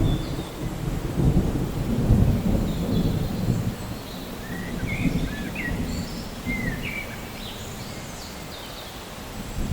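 Steady rain with rolling thunder that rumbles through the first few seconds and then dies away. A few short, high chirps come through the rain in the middle.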